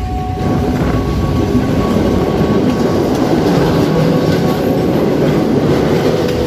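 Passenger train running along the track, heard from the open window of a carriage: a loud, steady rumble and rattle of wheels on rails that swells just after the start.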